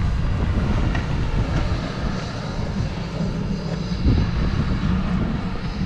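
Engine of a snowplow vehicle running steadily, a continuous low rumble.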